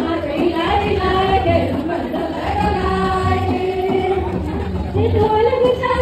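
A group of women singing a welcome song together, with people talking underneath.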